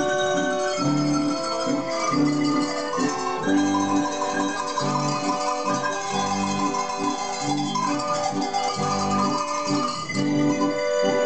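Handbells ringing a tune, accompanied by guitar and accordion.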